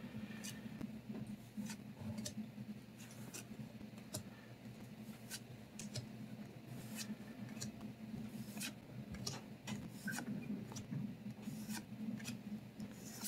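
Trading cards being handled and flipped through, sliding against one another: soft, irregular ticks and rubbing, about one or two clicks a second.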